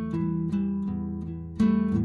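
Background music of plucked string notes, each note struck and then fading.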